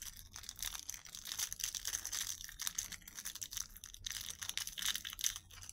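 Glossy plastic blind-bag wrapper crinkling and crackling in the hands as it is torn open and unwrapped to get at a small toy figure, a dense run of crackles throughout.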